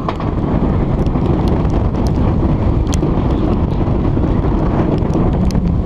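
Wind buffeting an onboard camera on the Silver Star, a B&M steel hypercoaster, with the train rumbling along the track at speed. The rush is loud and steady, broken by scattered sharp ticks.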